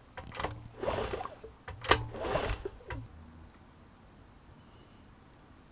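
The 1978 Honda Z50A's single-cylinder engine is turned over for a spark check, not yet running. There are three short bursts of mechanical clatter with sharp ticks, about a second apart, then quiet from about three seconds in.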